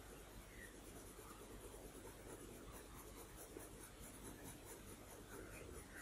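Coloured pencil stroking lightly on drawing paper: a faint, uneven scratching.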